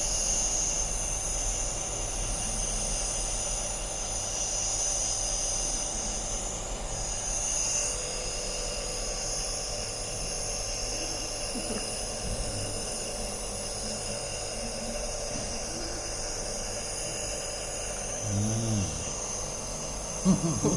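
Compressor nebulizer running, a steady hiss over a low hum as it turns medicine into mist for a cough. A short low voice sound comes near the end.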